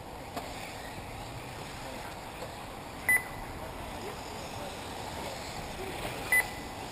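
Two short, sharp electronic beeps, about three seconds apart, over a steady wash of outdoor noise: typical of an RC race lap-timing system registering a car as it crosses the timing line.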